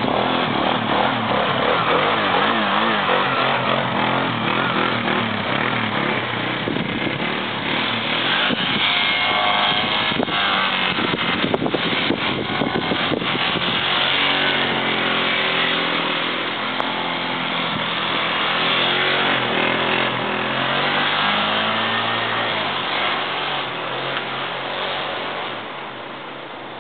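ATV (quad bike) engine running and revving as the quad drives through deep snow, its pitch rising and falling. The engine fades near the end as the quad moves away.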